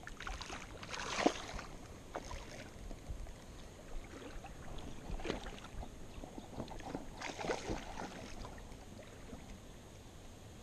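Water splashing in a shallow river as a hooked Iberian barbel thrashes at the surface. There are several short bursts of splashing, the loudest about a second in, more around five seconds in and again at seven to eight seconds.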